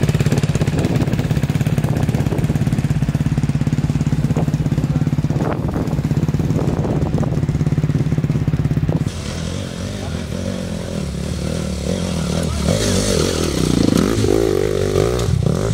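A motorcycle engine runs steadily at an even pitch for about nine seconds. It then gives way abruptly to an enduro dirt bike revving up and down, its pitch rising and falling as it is ridden over the trail.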